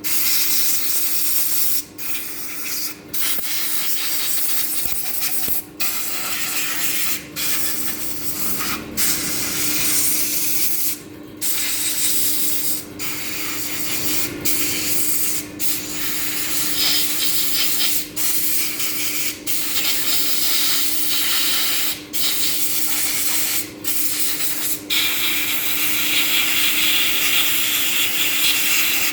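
High-pressure spray hissing in long spells, cut off briefly about fifteen times as the trigger is let go, over a steady machine hum.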